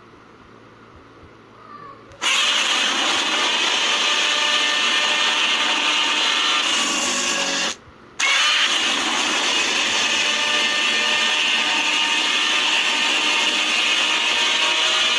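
Harsh, noisy monster sound effect for a fan-made Godzilla-type creature: it starts suddenly about two seconds in after a fading tail, cuts out briefly about halfway, then resumes loud and steady.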